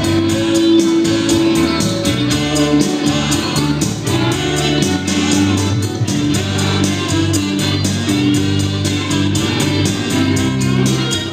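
Live band music with singing over long held instrumental notes.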